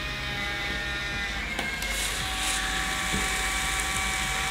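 Instax Mini 11 instant camera's small motor whirring steadily as it pushes the exposed print out of the slot, its pitch shifting slightly about a second and a half in.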